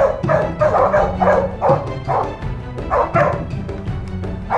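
Hunting dogs barking repeatedly, about two or three short barks a second, each dropping in pitch, with music underneath.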